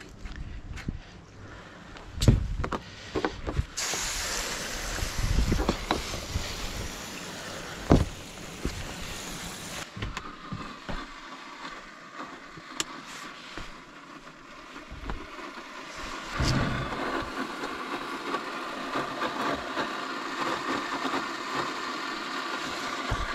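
Garden hose water spraying and splashing onto a van's metal roof, to flood it and test for a leak. It comes with a few sharp knocks and thumps early on, and the spray's hiss is loudest in the first half.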